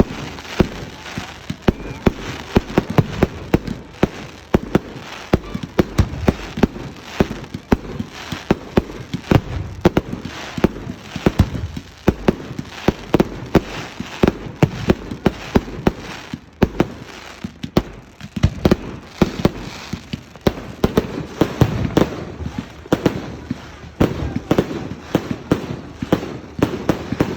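Fireworks going off: a dense run of sharp bangs and crackles, several a second.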